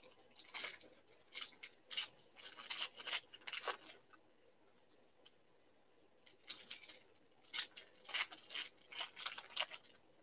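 Foil basketball card pack wrappers crinkling and being torn open by hand, in two spells of quick rustling bursts with a pause of about two seconds between.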